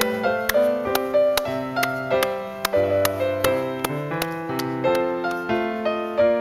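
Background piano music: a gentle melody of struck notes, about two to three a second, over lower held notes.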